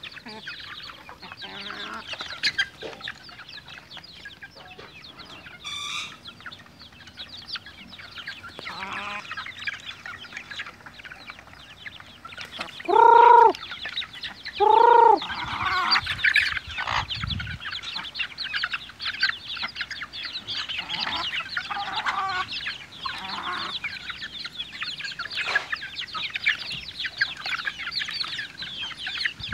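A flock of two-month-old native chickens feeding, with many short high-pitched clucks and peeps running on throughout. About halfway through, one bird gives two loud, drawn-out calls about a second and a half apart.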